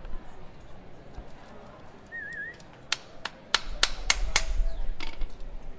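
Horse hooves clopping on a hard surface: a few scattered clops, then a quick run of about six sharp clops about three a second.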